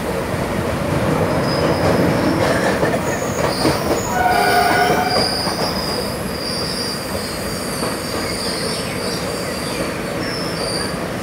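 Passenger train running through a station, heard from on board: a steady rumble of wheels on the rails with high, thin wheel squeal coming and going from about a second and a half in, and a short, louder pitched squeal about four seconds in.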